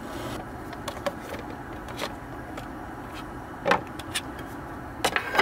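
A few short knocks and clatters, the loudest a little past halfway, as plastic collapsible camping pots and lids are handled and set down on a wooden table, over a steady low background rumble.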